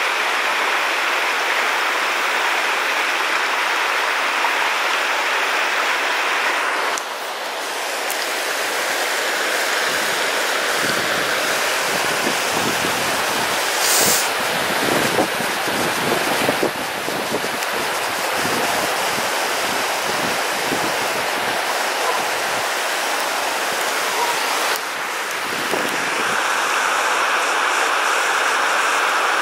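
Shallow rocky river rushing over boulders in rapids, a steady loud rush of water that changes abruptly twice. Low thumps and rumbles sit under the rush in the middle stretch.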